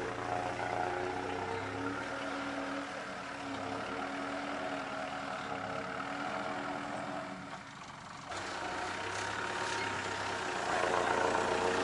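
An off-road 4x4's engine running steadily, with a brief drop about eight seconds in, then picking up louder near the end.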